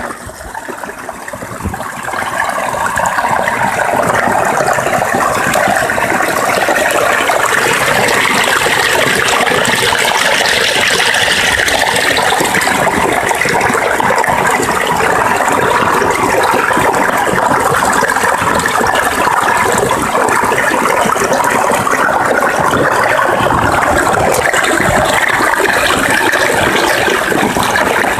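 Small taiga forest stream babbling and splashing over its bed in a steady, full rush of water. It grows louder over the first few seconds, then holds even.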